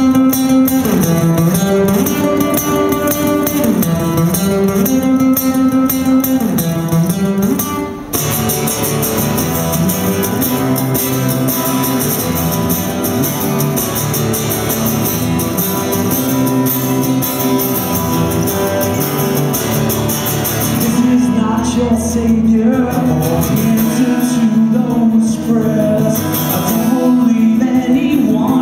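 Live solo set: an acoustic-electric guitar played through a hall PA. The playing changes about eight seconds in, and a male voice sings over the guitar from about two-thirds of the way through.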